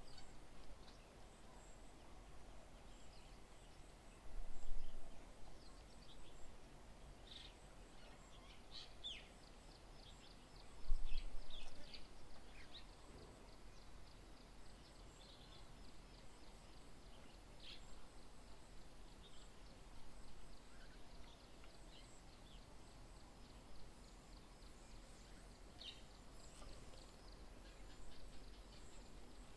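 Small birds giving short, scattered chirps and calls over steady outdoor background noise with a constant thin high whine. There are two brief low rumbles, about four and eleven seconds in.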